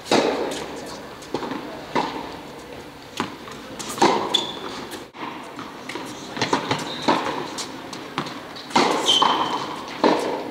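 Tennis balls struck by racket strings and bouncing on a hard indoor court, a sharp pop every second or two that echoes around the hall, with two short high squeaks of tennis shoes on the court surface.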